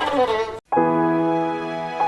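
A short falling pitched call in the first half second, then a sudden cut to silence, then sustained music chords with a bowed-string sound start and hold steady.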